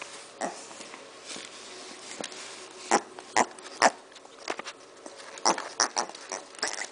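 Micro piglet snuffling and sniffing at close range: a series of short, sharp snorts, a cluster of them about three seconds in and more a couple of seconds later.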